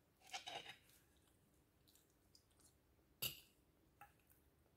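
A metal fork cutting sticky rice cake against a ceramic bowl: a short scraping rustle near the start, a sharp click about three seconds in, and a fainter click just after.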